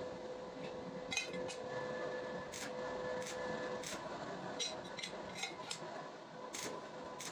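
Stick (arc) welding on steel strip: a steady crackling hiss from the arc, broken by sharp metallic clicks as the electrode strikes and the steel strips are handled, over a faint steady hum.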